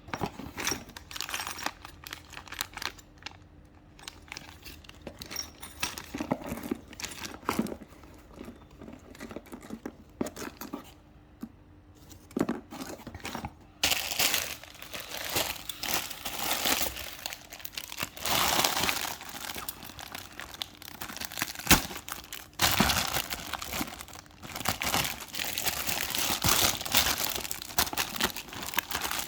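Packaging being crumpled, crinkled and torn by hand while a parcel is unwrapped. The rustling is sparse at first, then denser and louder from about halfway, with one sharp click about three-quarters through.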